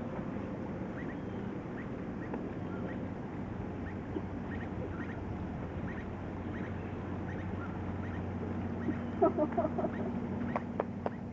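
Outdoor background noise with a steady low hum and short high chirps scattered through it. About nine seconds in there is a quick run of short bird-like calls, followed by a few sharp clicks near the end.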